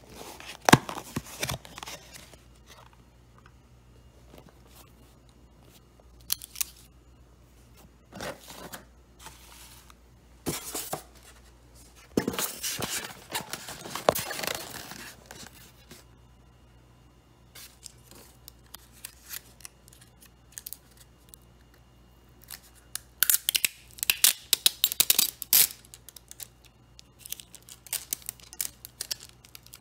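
Hands handling a cardboard nugget box and paper food packaging. There are scattered rustles and crinkles, a longer rustling stretch about twelve seconds in, and a dense run of crackles and tearing near the end, as the foil lid is peeled off a plastic sauce cup.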